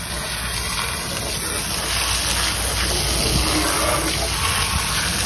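Garden-hose spray hitting the truck's aluminum diamond-plate running board and wheel area, a steady hiss of water splashing off metal as caked dirt is washed away.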